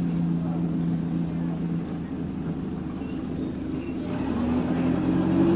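Bus engine idling with a steady hum. Its note sags, then rises and grows louder about four seconds in, the jerky, hunting idle of this bus.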